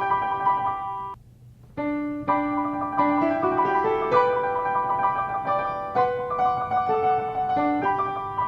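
Solo piano music playing a melody, with a brief break a little after one second in, then resuming with a run of rising notes.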